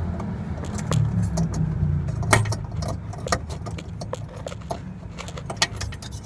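Irregular light clicks and scrapes of a halogen headlight bulb's plastic and metal base being turned and seated into the back of the headlamp housing, over a low rumble.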